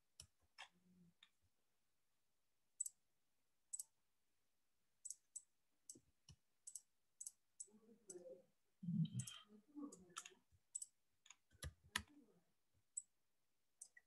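Faint, scattered clicks of a computer mouse and keyboard, about two dozen sharp ticks at irregular intervals, with a stretch of duller handling noise around the middle.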